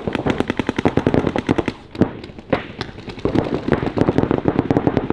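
Paintball markers firing in rapid strings of shots, many a second, with a short lull about two seconds in before the firing picks up again.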